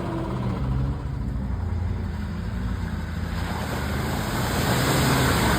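Truck engine running steadily at a low pitch, with a rushing, splashing-like noise that grows louder toward the end.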